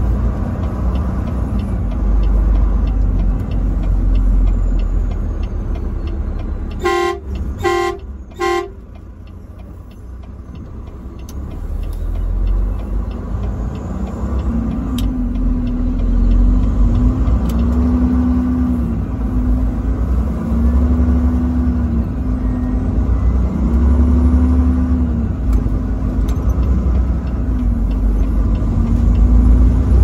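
Truck horn sounding three short blasts about a quarter of the way in, over the low rumble of the truck's engine heard from the cab. After a brief lull the engine's pitch rises and falls several times as the truck accelerates.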